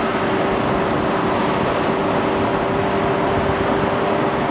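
Engine running at a steady speed with rushing wind noise, heard from on board a motorcycle riding along at cruising speed; the level and the engine's pitch stay even throughout.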